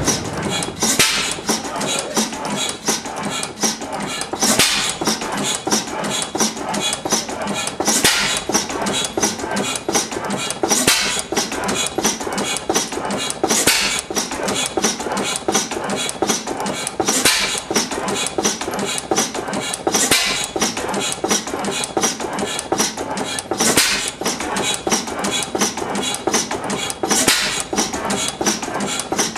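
1911 Schlüter horizontal single-cylinder stationary gas engine running slowly, its flywheels turning: a steady mechanical ticking and clatter, with a heavier stroke about every three and a half seconds.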